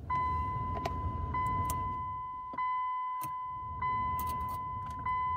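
Electronic dashboard warning chime in a 2010 Dodge Journey, a steady ringing tone re-sounded about every 1.2 seconds. Several sharp clicks from the climate control's rotary fan-speed switch being turned through its positions, over a low rumble.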